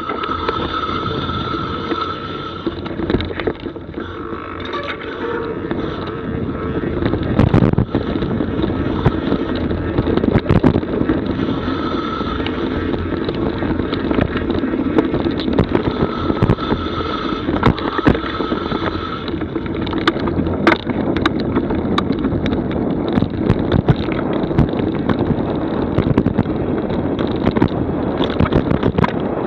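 Mountain bike riding fast down a dirt forest trail: wind rushing over the camera's microphone with the steady rumble of tyres on the ground, and frequent sharp rattles and knocks from the bike over bumps.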